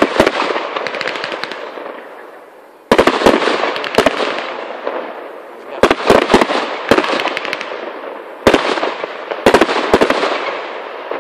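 Fireworks display: aerial shells bursting with sharp bangs in clusters every second or two, each bang followed by a dense crackle that slowly fades.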